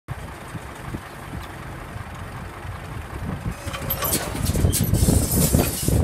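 Farm tractor engine running, with irregular knocks and rattles that grow louder from about halfway through.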